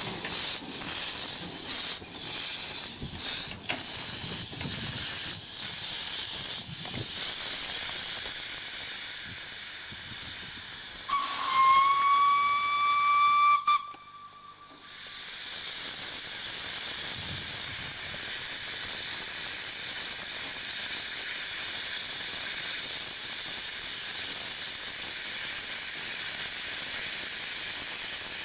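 Small steam tank locomotive chuffing with repeated exhaust beats as it moves off. About halfway through, a single loud whistle blast lasts about two and a half seconds, rising a little in pitch at its start, and cuts off sharply. After that comes a steady hiss of steam venting from the cylinder drain cocks.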